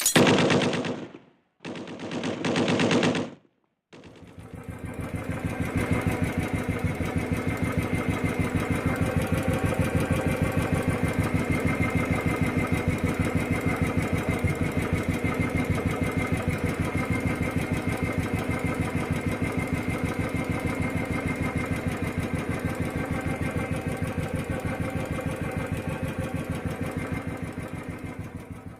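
Royal Enfield Standard 500 single-cylinder engine running steadily with a fast, even mechanical clatter, which the owner takes for a valve fault, with a lingering doubt about a loose one-way clutch nut under the left-hand cover. Two short unrelated sounds come first, and the engine fades in about four seconds in.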